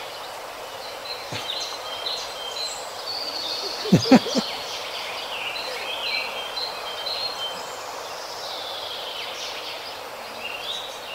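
Birds chirping and singing over a steady outdoor hiss, with a brief cluster of knocks about four seconds in.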